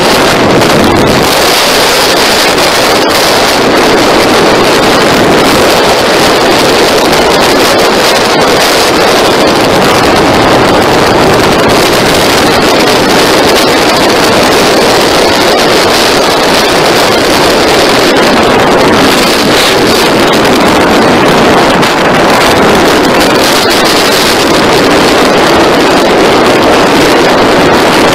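Steady, loud wind noise on the microphone of a camera mounted on a moving motorcycle, mixed with the motorcycle's engine and road noise at riding speed.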